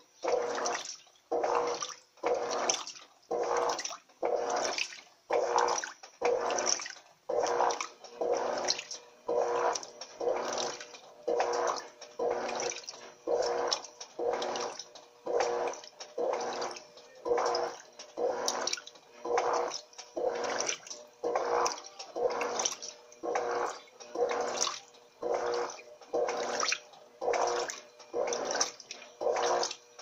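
Electrolux Turbo Economia 12 kg (LTE 12) top-loading washing machine agitating a load of microfiber blankets in deep water: a rhythmic swish of water about once a second as the agitator strokes back and forth, with a short dip between strokes and a hum during each stroke.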